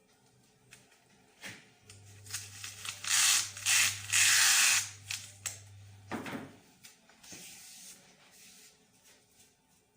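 Body-shop tool noise: a steady electric hum for several seconds, with three short, loud bursts of hiss in the middle.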